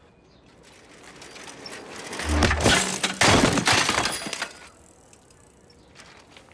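A bicycle and its rider crashing onto paving: a rush of noise builds up over a second or so, then a loud clattering crash with a thud lasting about two seconds, ending about four and a half seconds in.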